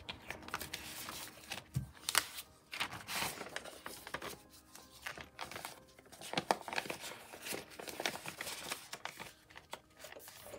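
Irregular rustling and crinkling of paper and plastic being handled: a clear plastic zip pouch in a budget binder and a printed paper sheet.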